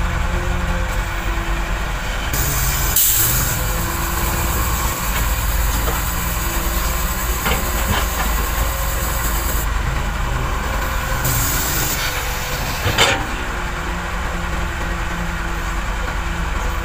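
Heavy diesel earthmoving machinery running steadily on a construction site, with long stretches of hiss and two sharp knocks, one about three seconds in and one about four seconds before the end.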